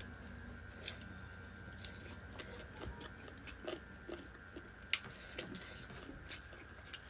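Close-miked chewing and mouth sounds while eating: irregular small clicks and crunches, with a sharper click about five seconds in.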